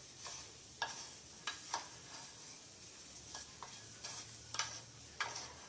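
Spatula stirring chopped okra in a stainless steel pan: a series of short scrapes and knocks against the pan at an uneven pace, fairly faint.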